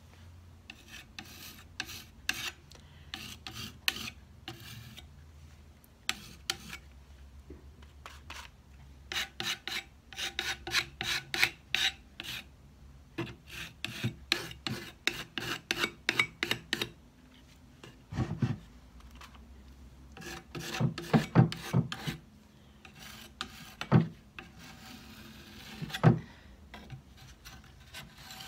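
Putty knife scraping and spreading paint across a painted wooden drawer front in quick repeated strokes, with a few dull knocks in the second half.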